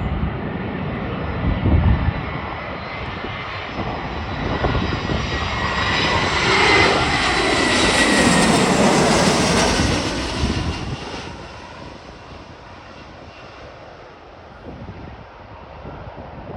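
An airliner passing close by, its engine noise building to a peak with a high whine and a falling pitch, then fading away about twelve seconds in. Strong wind buffets the microphone.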